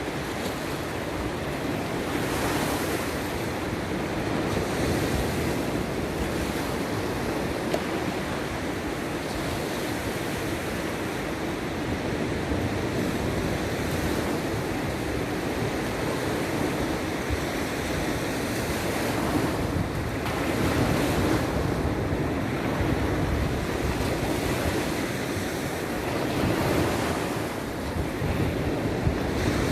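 Sea surf washing onto the shore in a steady roar, swelling louder as bigger waves break now and then, with wind rumbling on the microphone.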